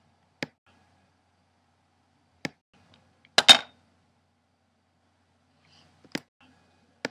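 A few short, sharp clicks, spaced irregularly, the loudest a double click about three and a half seconds in, with silence between them.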